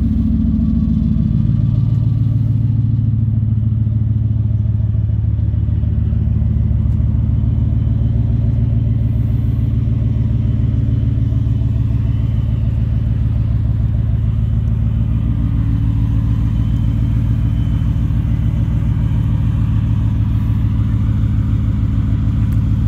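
Whipple-supercharged 5.0 Coyote V8 of a Ford F-150 idling steadily, its speed dropping back to idle in the first second or so.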